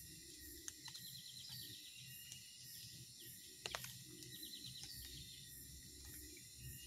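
Faint swamp ambience: a steady high insect drone, with two short runs of rapid chirping trills. A few light ticks are scattered through it, and a sharp double click comes a little past halfway.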